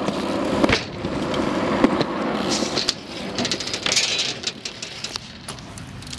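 BMX bike tyres rolling over concrete and wooden skatepark ramps under a steady rushing noise, with several sharp knocks and clatters as the wheels hit the ramps and land.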